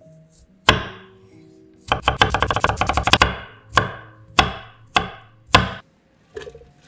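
Chef's knife chopping garlic on a wooden cutting board: one chop, then a quick run of rapid chops for about a second and a half, then four slower single chops.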